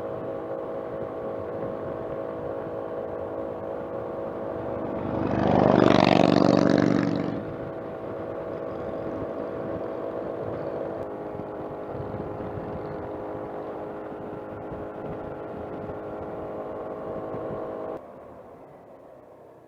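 Suzuki Burgman 200 scooter's single-cylinder engine running steadily under way, with a loud rush swelling and fading over about two seconds around a quarter of the way in. The engine sound drops off sharply near the end.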